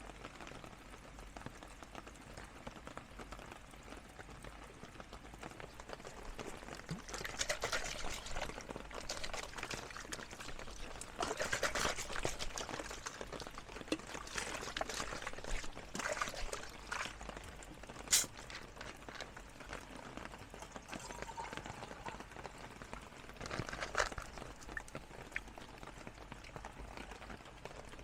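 Heavy rain falling steadily, swelling and easing in waves. There is a sharp click about two-thirds of the way through and a smaller one near the end.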